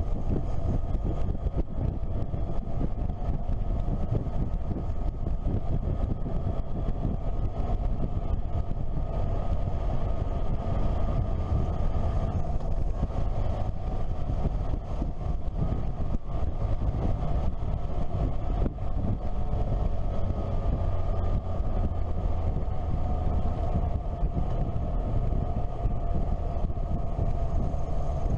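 Motorcycle engine running steadily on the move, heard from onboard the bike, with its pitch drifting slightly, over a low rush of wind and road noise.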